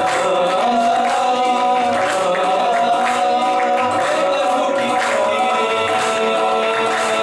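Qawwali sung by a group of men, with handclapping keeping the rhythm under long held sung notes.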